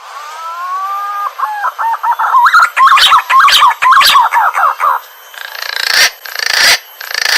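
Green pigeon (punai) calling: a long rising whistle, then a run of quick warbling whistled notes. Near the end come three loud, harsh rushing bursts that swell and cut off.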